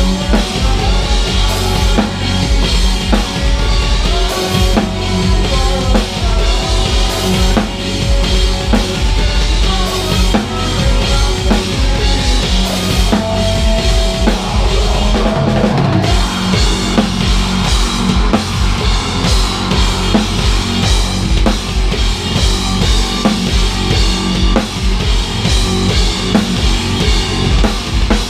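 Heavy metal band playing live, heard from the drummer's position with the drum kit to the fore. The DW kit's kick drums, snare and Soultone cymbals are hit in a driving pattern, with guitars and bass under them.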